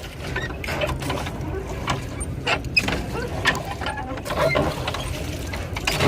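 Rowboat being rowed: irregular short knocks and clicks from the oars and boat over a steady low rumble.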